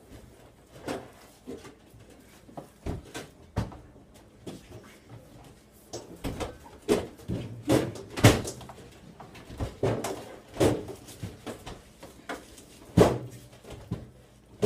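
Scattered knocks and clunks of an over-the-range microwave being hoisted under a cabinet and hooked onto its wall mounting plate, the loudest about eight and thirteen seconds in.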